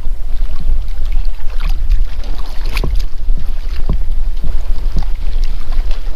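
Wind buffeting the microphone on a boat as a steady heavy rumble, with scattered knocks and taps, the sharpest about three seconds in.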